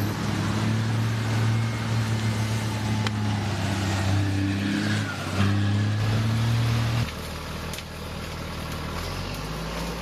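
Diesel engine of a wheeled armored vehicle running steadily as it drives through mud, a low drone. About seven seconds in, the sound cuts abruptly to a quieter vehicle engine.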